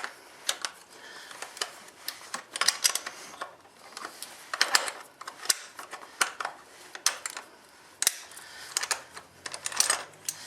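Irregular metallic clicks and clinks of steel wrenches working the rear axle crown nut loose on a motorcycle, some in quick clusters with a short ring.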